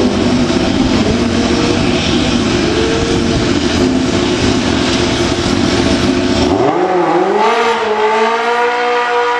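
Sports motorcycle revving hard in a drag-strip burnout, its rear tyre spinning with a rough roar under the engine note. About six and a half seconds in, the tyre noise stops suddenly and the engine settles into a steady held rev.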